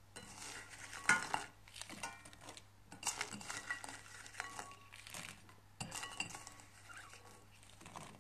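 Shelled peas and broad beans tipped by hand from a bowl into a stainless-steel pot, giving an uneven run of clatters and clinks with brief metallic ringing.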